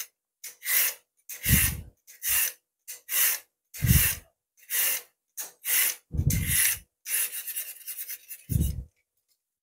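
Vegetable peeler scraping down a raw carrot: more than a dozen short rasping strokes in quick succession as the skin is stripped off.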